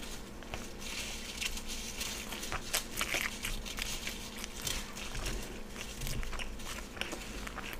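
Paper napkin crinkling and crumpling as hands are wiped with it, a steady run of small irregular crackles and clicks.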